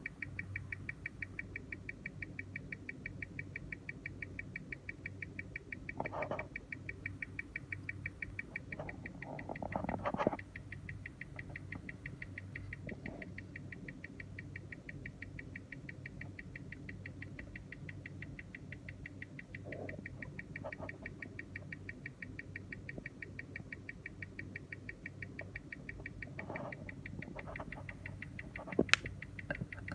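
A Tissot Powermatic 80 automatic watch ticking at its 21,600 beats-per-hour rate, about six even ticks a second, amplified through a timegrapher's microphone and speaker. The machine is reading about −1 s/d with 283° amplitude and 0.1 ms beat error. The ticks grow fainter after about ten seconds, and a few brief handling knocks interrupt them, with a sharp click near the end.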